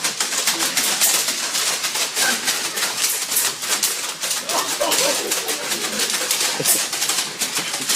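Battery-powered Nerf blasters firing foam darts: a rapid, continuous clatter of clicks, with faint voices partway through.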